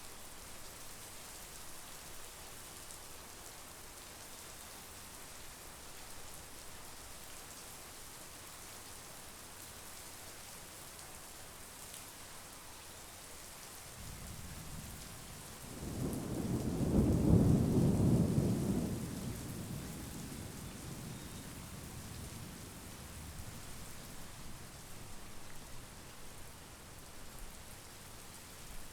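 Steady monsoon rain falling, with a roll of thunder that builds about halfway through, becomes the loudest sound for a few seconds, then dies away slowly.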